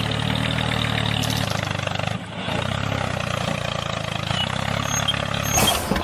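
Tractor engine running steadily with a low, even chug, dipping briefly about two seconds in.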